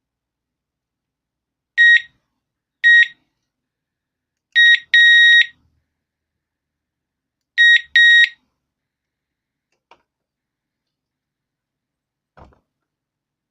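Digoo DG-ROSA wireless alarm siren sounding six short high-pitched beeps at one steady pitch: two single beeps about a second apart, then a quick pair with the second beep longer, then another pair about three seconds later. Two faint clicks follow near the end.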